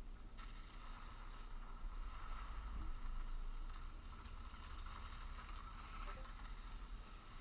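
Steady wind ambience of a bamboo forest, a low rumble under a soft airy hiss.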